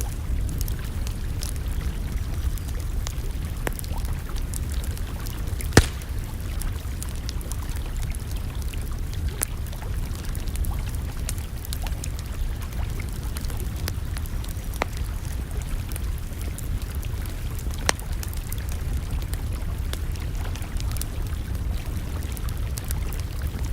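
Campfire crackling with scattered sharp pops, the loudest about six seconds in and another near eighteen seconds, over a steady low rushing sound.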